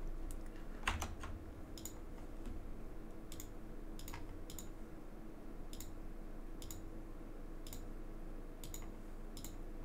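Light computer mouse clicks, about a dozen spread roughly a second apart, the firmest one about a second in, over a faint steady electrical hum.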